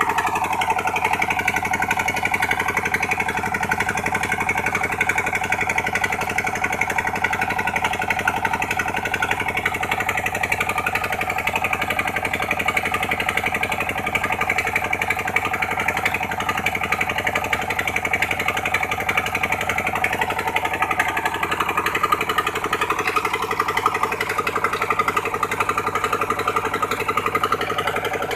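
Engine of a sand-suction dredging pump machine running steadily at a constant speed.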